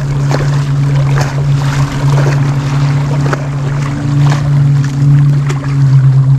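Small waves slapping and splashing against the jetty's boulders, over a loud, steady low hum.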